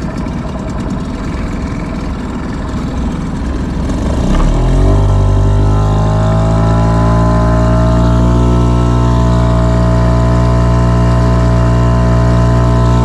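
Small outboard motor pushing a boat at trolling speed. About four seconds in it is opened up: the pitch rises and then settles into a steady, louder, higher-revving drone.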